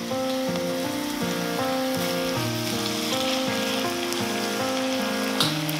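Diced tomato and onion sizzling in hot oil in a pot as they are stirred and pressed with a silicone spatula, under background music whose notes change several times a second.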